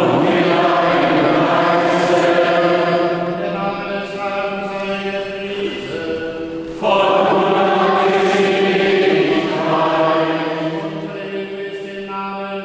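Voices singing a liturgical chant in two long sustained phrases, the second starting about seven seconds in, over a steady low held tone.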